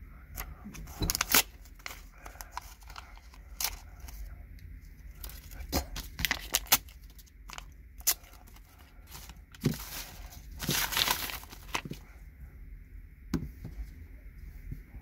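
Sheet of paper being torn by hand into strips and scraps: a string of short, irregular rips and crinkles, with a longer, louder rip about three-quarters of the way through.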